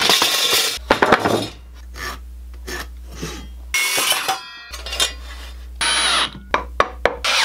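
A quick series of separate workshop sounds: metal brackets and screws tipped out of a cardboard box onto a mat, a Ridgid circular saw cutting through a 2x4 with its motor winding down briefly after, and a cordless drill driving screws through steel brackets into wood.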